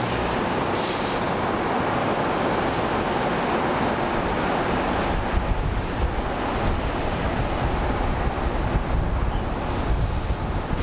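Steady rush of distant city traffic, with wind rumbling on the microphone from about halfway through.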